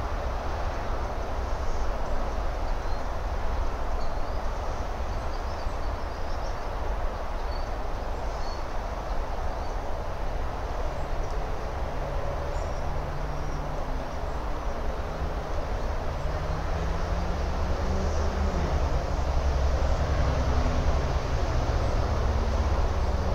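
Low, steady rumble of distant engine noise. In the second half it swells, with a low droning tone that rises and falls. A few faint high chirps sound over it in the first half.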